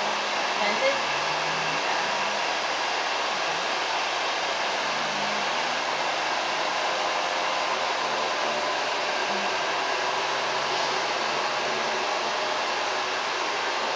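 Hair dryer blowing with a steady, even rush of air.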